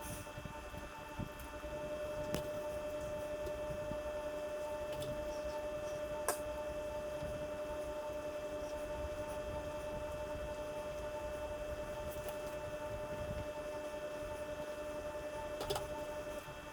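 Steady electrical hum made of several fixed tones, with a few light clicks scattered through.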